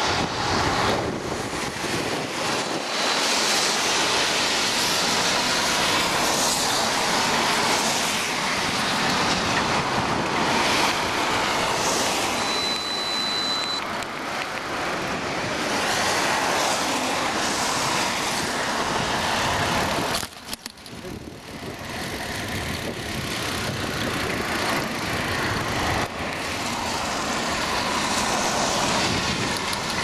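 Road traffic on a wet road: tyres hissing as cars pass, mixed with wind noise on the microphone. A short high-pitched beep sounds about halfway through.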